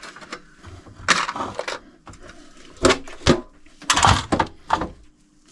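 Rummaging among small hard parts: a run of clattering knocks, the loudest near the middle and again around four seconds in.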